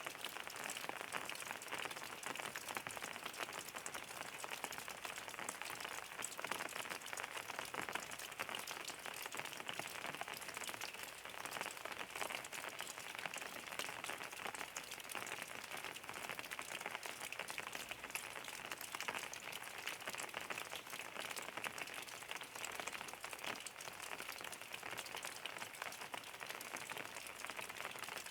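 Steady rain falling, a dense, even patter of drops on a surface, with no let-up or change.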